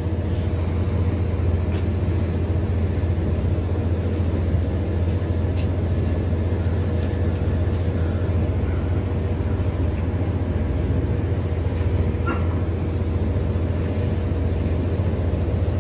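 Ferry's engines running with a steady low drone and a faint steady whine above it, with a few light knocks.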